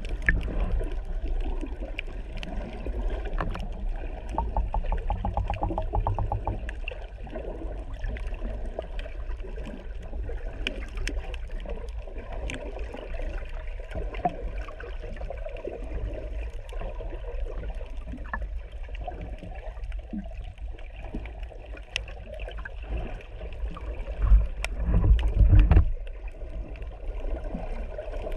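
Muffled underwater sound picked up by a GoPro on a snorkelling swim: a steady low rumble of moving water with many scattered sharp clicks, and a louder low surge about 24 seconds in that lasts a couple of seconds.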